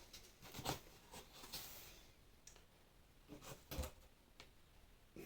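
Faint, scattered clicks and light rustles of small items and paper packaging being handled, a few sharper clicks about a second in and again near four seconds.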